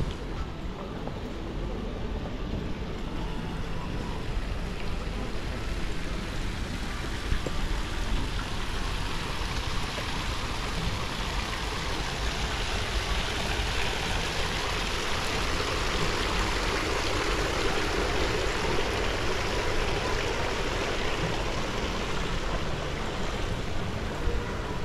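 Fountain water spilling from a stone urn into its pool, a steady rushing splash that grows louder through the middle.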